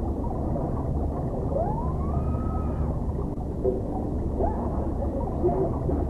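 A boy yelling, his voice muffled and warped by an underwater effect into long pitch sweeps that rise and fall, over a steady low rumble.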